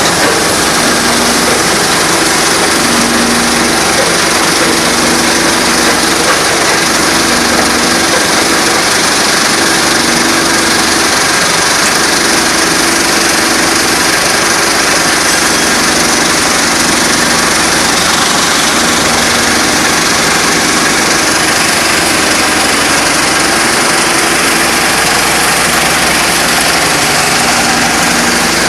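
Engine-driven stone crusher machine running steadily: a loud, continuous machine noise with a low hum that swells and fades every two seconds or so.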